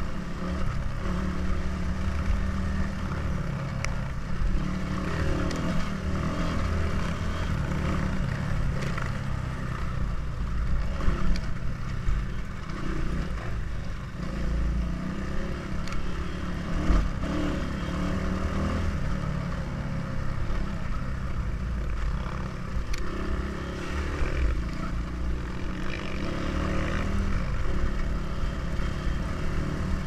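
Dirt bike engine running while the bike is ridden along a rough dirt track, with heavy wind rumble on the camera's microphone.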